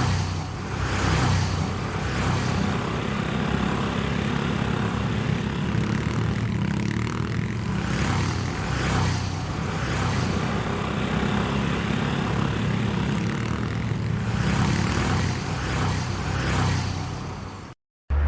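Car engine running with a steady low drone, swelling louder for a moment a few times, then cut off suddenly near the end.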